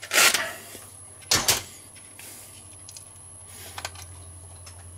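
Plastic tube squeezer being worked along a tube of tomato paste, the metal tube crinkling under it: a loud rasp at the start, two sharp clicks about a second and a half in, then softer rustling, over a steady low hum.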